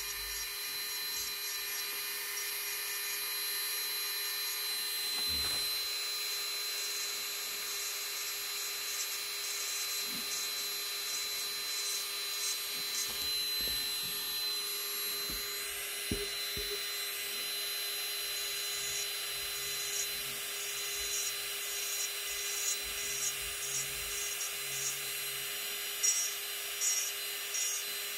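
Electric manicure drill running with a fine pointed bit, a steady whine, as it cleans dried cuticle from the nail folds, with light rubbing of the bit on the skin. Under it the fan of a manicure dust collector runs with an even hum.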